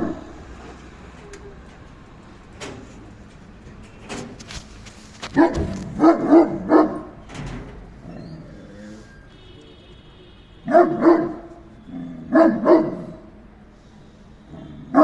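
Great Dane barking: a run of four barks about five seconds in, then two pairs of barks later on.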